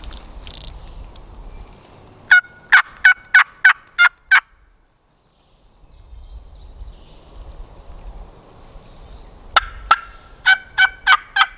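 Turkey yelping: a run of about seven short, evenly spaced yelps, then after a pause two more yelps and a quicker run of five near the end.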